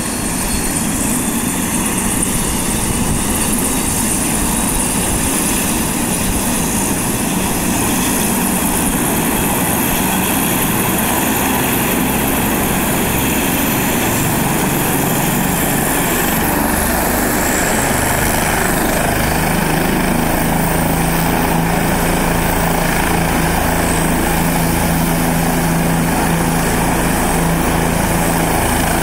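A helicopter's rotor and engine running steadily as it hovers low over the grass. A steady low hum joins in about two-thirds of the way through.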